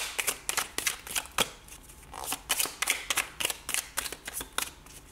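A deck of oracle cards being shuffled by hand, overhand style: a quick, uneven patter of cards clicking and slapping against each other, several a second.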